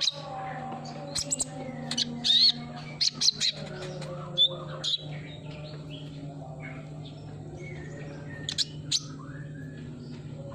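Sunbird (Indonesian 'kolibri ninja') giving sharp, high chirps and short trills in quick bursts, over a steady low hum.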